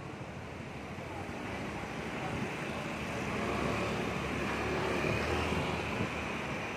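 Motorbike ride in city traffic: the bike's engine and the surrounding traffic running steadily, with some wind on the microphone, growing louder from about two seconds in as it picks up speed.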